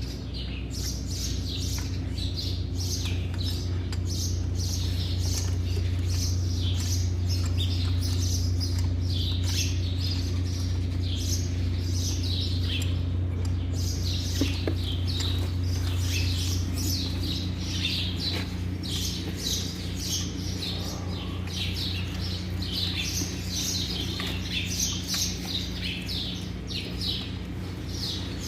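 Many small birds chirping busily over a steady low machine hum. The hum is the louder sound.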